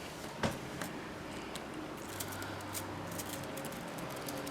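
Scattered light clicks and rustles as a bundle of metal sparklers is handled and wrapped with electrical tape, over a faint low steady hum.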